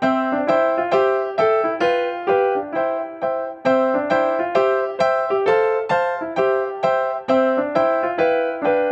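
Background music: a gentle piano-like keyboard melody, with notes struck in a steady, even run, each one dying away before the next.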